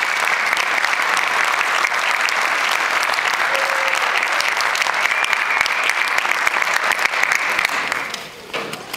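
Audience applauding steadily, then dying away about eight seconds in.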